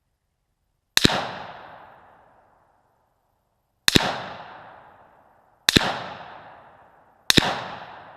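Four gunshots, each a sharp crack followed by an echo that dies away over about a second and a half, spaced unevenly about two to three seconds apart.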